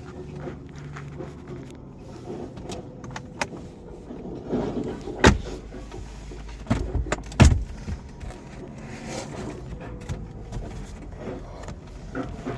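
Clicks and sharp knocks from a car's interior being handled, the two loudest knocks about five and seven and a half seconds in, over a steady low rumble.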